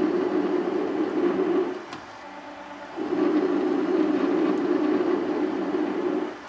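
Metal lathe single-point threading an 11 threads-per-inch thread in a mild steel pin: a steady loud drone through each cutting pass. It drops away just under two seconds in, between passes, returns about a second later for the next pass and stops again near the end.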